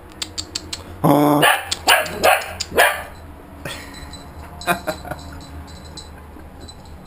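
Small dog barking in a burst of short barks in play, egged on to attack, with fainter calls a few seconds later and light clicks in between.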